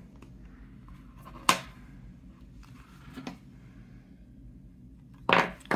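Sharp plastic clicks and taps from a Motorola flip phone being handled with its back open while its battery is worked loose: one loud click about a second and a half in, a few faint ones, and two strong clicks near the end.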